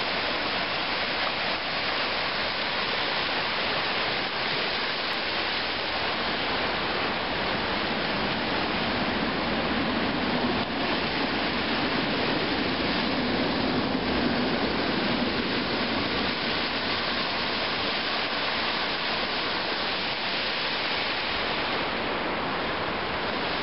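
Small sea waves breaking and washing up a sandy beach: a steady rush of surf, swelling slightly about halfway through.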